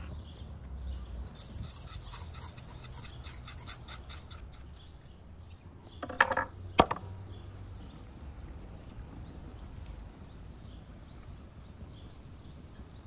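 A knife scraping and rasping on a cow's hoof, with two sharp knocks of the blade on a wooden cutting board about six seconds in.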